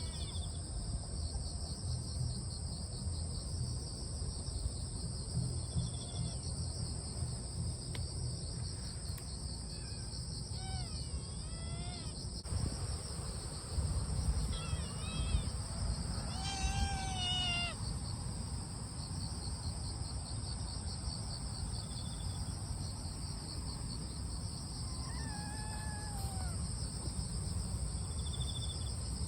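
Kittens meowing several times, the loudest a cluster of calls about halfway through, over the steady high chirring of crickets and other insects and a low rumble.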